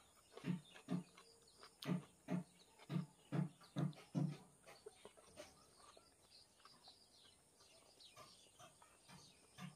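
Close-miked chewing of mouthfuls of rice and chicken curry, a steady beat of about two chews a second for the first four seconds, then quieter with faint wet mouth clicks.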